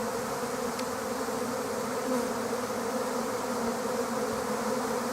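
A swarm of honeybees buzzing all around at close range, a steady dense hum of many wings, as the swarm gathers to move into a new nest cavity.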